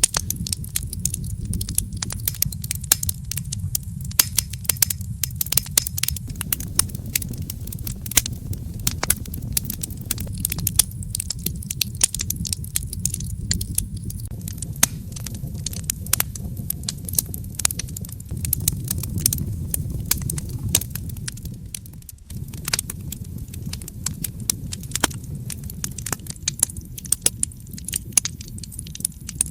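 Wood fire crackling in a fireplace: a steady low rumble of flames with many sharp pops and snaps, briefly dropping out for a moment about two-thirds of the way through.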